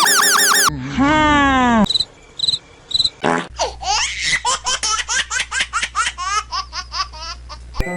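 Cartoon sound effects: for about the first two seconds, loud pitched tones arch up and down. Then a quiet pause with a few short cricket chirps. From the middle to near the end, a rapid run of high-pitched giggling laughter over a low steady hum.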